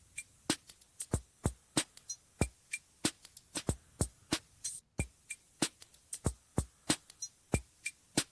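Background music made mostly of a steady electronic drum-machine beat, sharp hits about twice a second.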